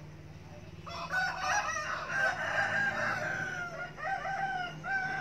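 A long drawn-out animal call starting about a second in, then two shorter calls near the end, over a steady low hum.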